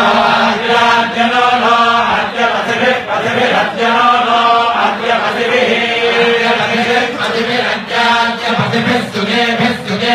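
Vedic chanting: voices reciting Sanskrit verses on a few close, held pitches, in phrases that break every second or two.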